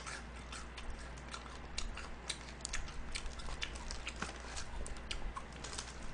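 Irregular small crunches and clicks, several a second, from eating and handling crispy honey-glazed fried chicken with plastic-gloved hands.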